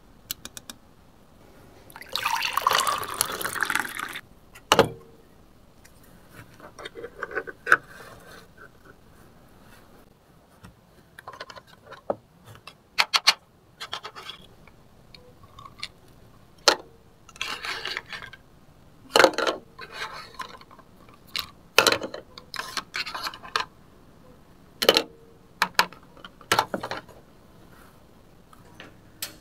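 Water poured from a small paper cup into a toy pot for about two seconds, then scattered clicks and clacks of a plastic spatula and plastic toy food pieces knocking against the pot.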